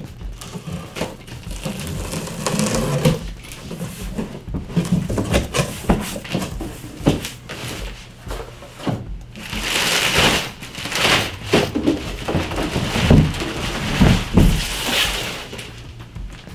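A cardboard shipping box being opened and unpacked. Packing tape is slit, and cardboard flaps and inserts scrape and knock. Plastic wrapping crinkles for several seconds in the second half, with a few heavy thumps as the wrapped cooler is lifted out.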